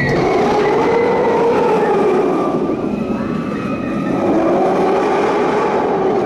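Steel roller coaster train running along its track: a loud rumbling roar that swells, eases about halfway through and swells again as the train moves through the layout, with riders' faint screams in the first two seconds.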